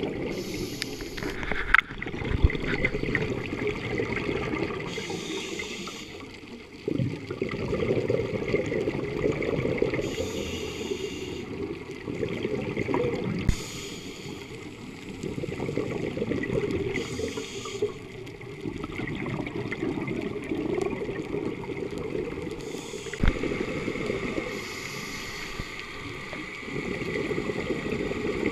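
A scuba diver breathing through a regulator underwater, heard through a waterproof camera housing: hissing inhalations alternating with gurgling bursts of exhaled bubbles every few seconds.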